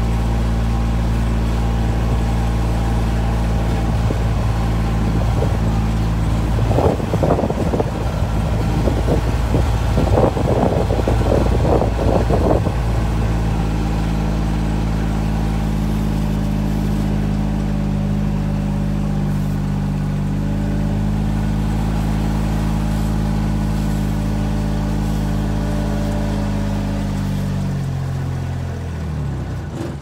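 A vehicle's engine running steadily as it drives slowly, with a stretch of rattling and knocking from about seven to twelve seconds in. Near the end the engine note falls and then stops.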